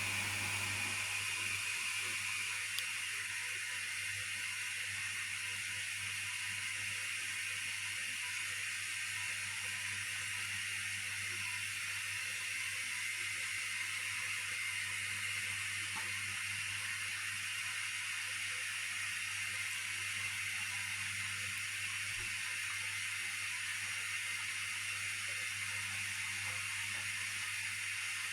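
Hotpoint Aquarius washing machine running, a steady hiss over a low hum.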